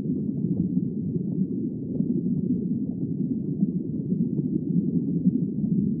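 Steady, muffled low rumble of underwater ambient noise, even and without distinct calls or tones.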